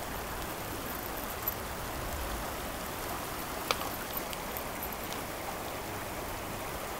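Shallow creek water running over rocks in a steady rush, with a couple of short sharp clicks, the loudest about two-thirds of the way through.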